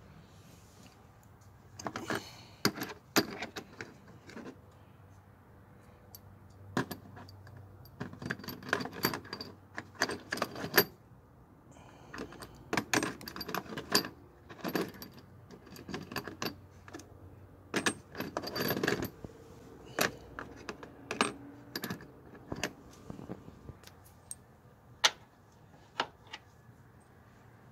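Bolts, brackets and hand tools clinking and clattering against metal in irregular bursts, with sharp single clicks, as the engine mount hardware is handled and fitted back in place.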